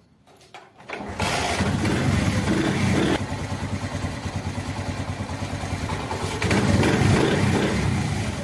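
Honda CD70's small four-stroke single-cylinder engine starting about a second in and running with an even beat, its revs rising again around six seconds in. The engine runs on a newly fitted Euro 2 air filter.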